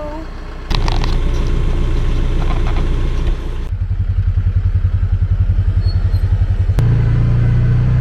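Branson tractor's diesel engine running. Loud engine noise starts suddenly about a second in, turns to a fast, even throb in the middle, and settles into a steadier low hum after a click near the end.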